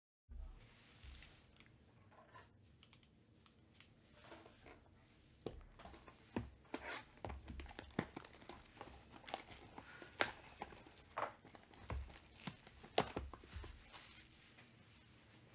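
Clear plastic shrink wrap being torn and peeled off a trading-card box by hand. It crinkles with irregular sharp crackles, which grow busier about halfway through.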